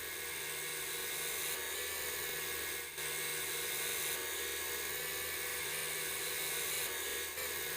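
Woodworking power tool running steadily with a high whine and hiss as it works wood, with two brief dips, about three seconds in and near the end.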